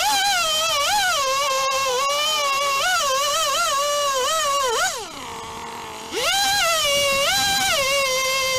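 Two-stroke chainsaw running at high revs through a log, its pitch wavering as it loads and unloads in the cut. About five seconds in, the throttle drops to idle for about a second, then the saw revs back up and keeps cutting.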